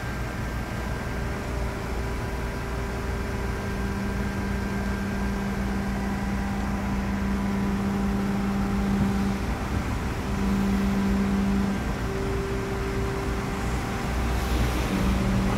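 Kubota mini excavator's diesel engine running steadily under load as the machine hoists itself onto a flatbed truck with its boom and blade. A hydraulic hum comes in and drops out several times as the controls are worked, with a short noisier patch near the end.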